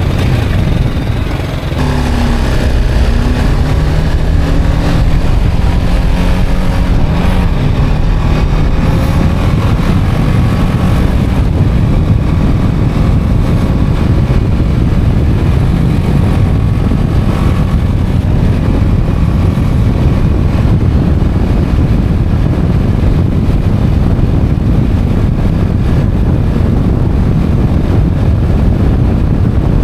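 Motorcycle engine pulling up through the revs in a few rising glides over the first several seconds, then running steadily at road speed under heavy wind rumble on the microphone.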